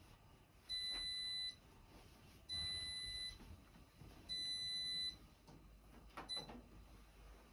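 Electronic beeper of a household appliance sounding three steady, high-pitched beeps, each a little under a second long and nearly two seconds apart, followed by a short blip near the end.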